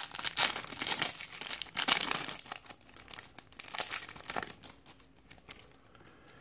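Crimped plastic wrapper of a trading-card pack crinkling and tearing as it is pulled open by hand; the crackling thins out and fades about two-thirds of the way through.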